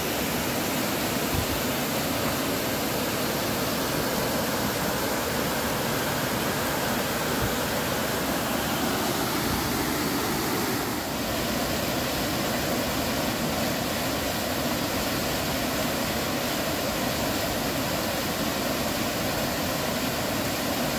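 Mountain stream rushing steadily over rocks and small waterfalls, with a slight change in the water sound about halfway through.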